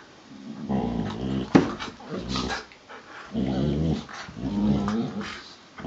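Two collies play-fighting, mouth to mouth, growling in four short bursts with one sharp snap about one and a half seconds in. It is play growling between friendly dogs, not a real fight.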